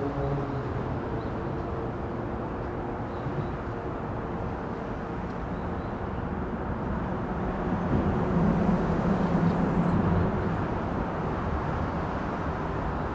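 Steady low rumble of distant vehicles, with a humming engine tone that swells between about eight and ten seconds in and then fades.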